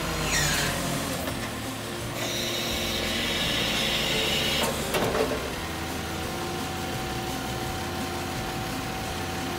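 Isuzu Forward truck's diesel engine idling while its hook-lift hydraulics raise the hook arm. A hiss runs for a couple of seconds near the start, a few clunks come about five seconds in, and then a steady whine from the working hydraulics.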